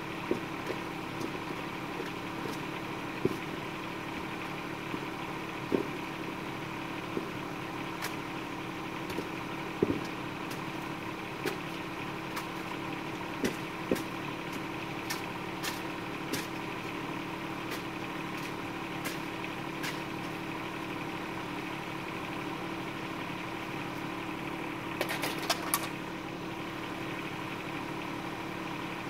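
Bobcat 418 mini excavator's diesel engine idling steadily, with scattered sharp knocks of a steel digging bar being driven into dirt and stones by hand. Near the end comes a quick clatter of several clicks.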